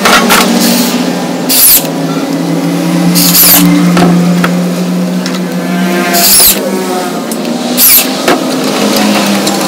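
Loud background electronic music: a sustained low note that shifts in pitch, with a whooshing sweep four times.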